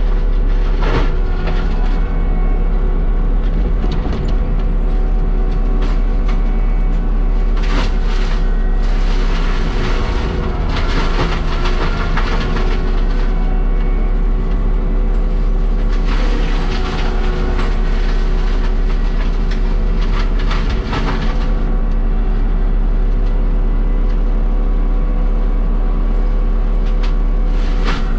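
Diesel engine of a land-clearing machine running steadily under load, with clanks and scrapes at intervals as the machine pulls debris off an old wire fence.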